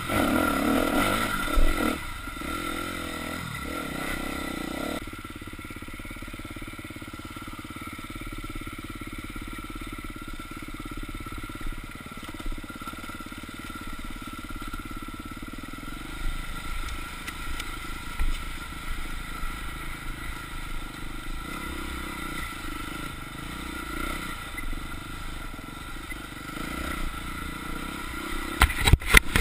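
Dirt bike engine running while being ridden, louder for the first two seconds, then lower and steadier, with a quick run of knocks and clatter near the end.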